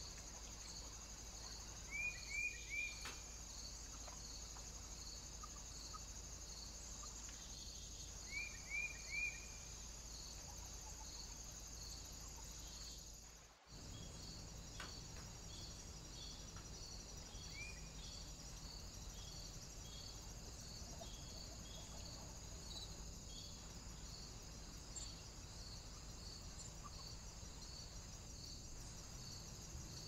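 Insects chirping steadily in a regular pulsing rhythm, which runs faster after a short dropout about halfway. A small bird cuts in with quick runs of three high notes, twice in the first third and once more later.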